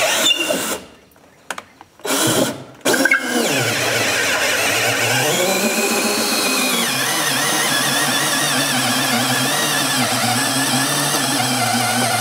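Cordless DeWalt right-angle drill boring through a wooden stud with a 3/4-inch auger bit: a few short trigger bursts, then a long continuous run whose pitch sags for a couple of seconds partway through and then recovers. The light-duty drill is straining under the load and making bad noises, and its motor is overheating.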